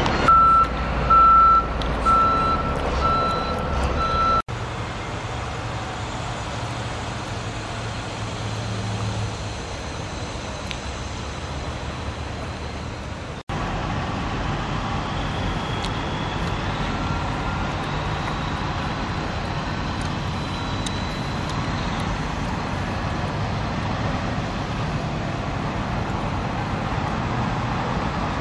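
A vehicle's reversing alarm beeping at one pitch, about one beep a second, over engine rumble; it stops at a cut about four seconds in. After that comes a steady drone of engines and outdoor din, broken by a second abrupt cut.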